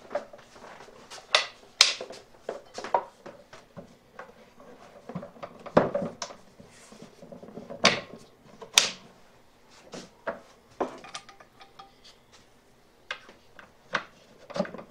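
Irregular wooden knocks and clacks, with some light clatter, as parts of a wooden tool cabinet and tools are handled and set in place, a few of them sharp and loud.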